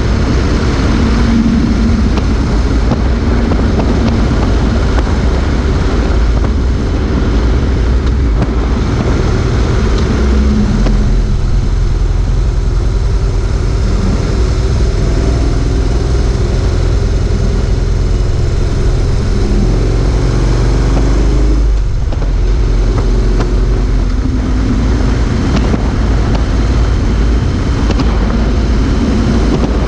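Motorcycle riding at road speed: heavy wind rush on a low-mounted action camera's microphone over engine and tyre noise. The engine note rises and falls through the bends, with a brief lull about two-thirds of the way through.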